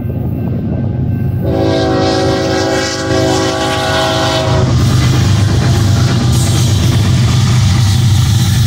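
BNSF freight train, led by a GE ES44C4 diesel locomotive, passing close at a grade crossing. About a second and a half in, the horn sounds one chord of about three seconds for the crossing, over the low rumble of the diesel engines. After the horn stops, the rush and clatter of the locomotives and double-stack cars going by takes over.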